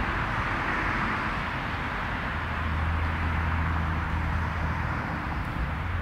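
Steady outdoor night ambience: a constant hiss with a low hum underneath, unchanging throughout.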